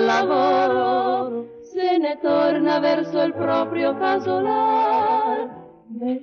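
Two women singing a 1950s Italian song in close harmony with vibrato, played back from a vinyl record. The singing breaks off briefly about a second and a half in and again near the end.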